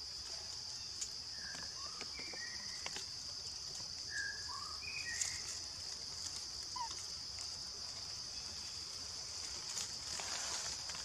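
Steady high-pitched drone of forest insects, with a few short chirps scattered through the first several seconds and leaves rustling near the end.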